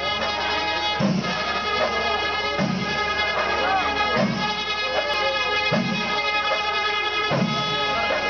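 Music: a steady drone with a wavering melody over it and a low drum beat about every one and a half seconds.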